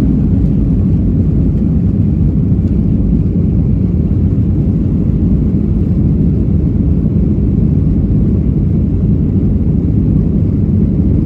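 Jet airliner's engines heard from inside the cabin during takeoff and initial climb: a loud, steady low rumble.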